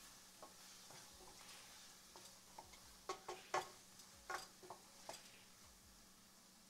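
A spoon stirring onion-tomato masala as it sautés in a pan. It makes irregular faint taps and scrapes against the pan over a faint sizzle.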